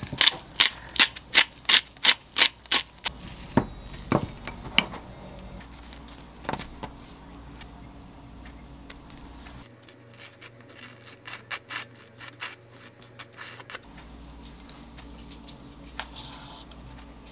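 A wooden utensil knocking against a glass bowl while mashing and mixing sweet potato with boiled egg: sharp clicks about three a second for the first five seconds. After that come only occasional clicks and soft scraping of a spoon spreading mustard on toast and piling the mix onto it.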